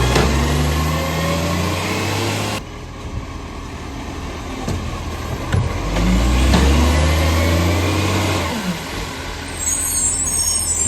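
Garbage truck's diesel engine with an exhaust leak, revving up and holding high twice, each time for a few seconds before dropping back to a lower run: once cutting off sharply about two and a half seconds in, and again from about six seconds in until it falls away near eight and a half seconds.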